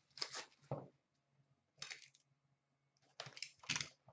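Hard plastic trading-card holders and packaging handled by hand: a few short clicks and clacks, the loudest pair near the end.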